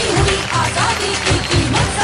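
Music playing, with heavy low beats under a melody.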